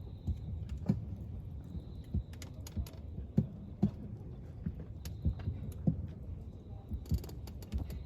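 Irregular small clicks and knocks, a few a second, over a steady low hum.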